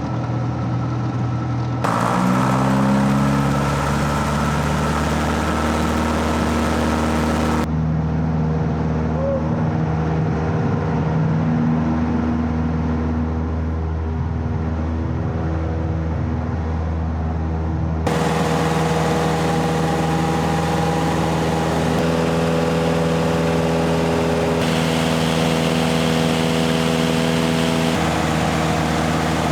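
Cessna 172S's four-cylinder Lycoming piston engine and propeller running steadily, its pitch rising as it revs up about two seconds in. The engine note shifts abruptly three more times.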